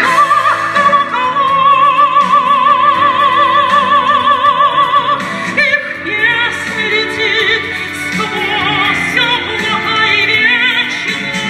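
A woman singing a song in an operatic style over instrumental accompaniment. She holds one long high note with wide vibrato for about four seconds, then moves on through shorter notes.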